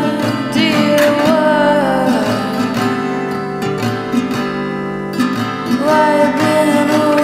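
Music with guitar: a melody of held notes that slide down between pitches over a steady low accompaniment.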